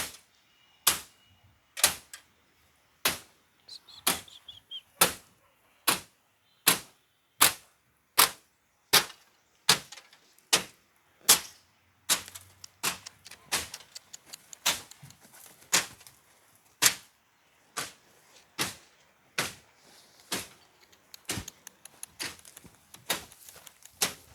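Sharp bangs of something hard being struck over and over, about one every three-quarters of a second. About halfway through the strikes come faster and less even, with lighter knocks in between.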